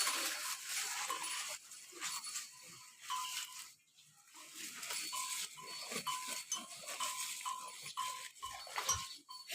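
Farm livestock calling, with a run of short, repeated high tones.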